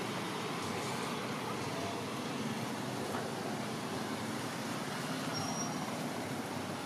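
Steady, even background noise with no single clear source.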